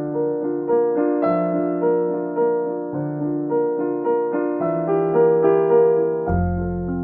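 Background piano music: a gentle melody with notes struck about every half second, joined by a deep bass note about six seconds in.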